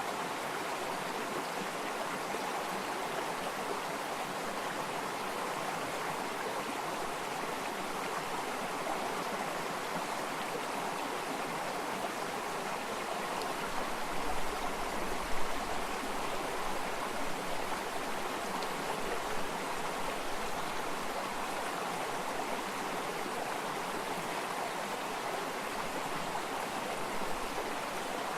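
Running water of a stream flowing steadily, an even rushing sound. About halfway through there is a brief low rumble with one sharper peak.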